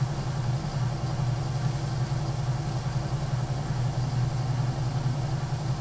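Electric potter's wheel running with a steady low motor hum.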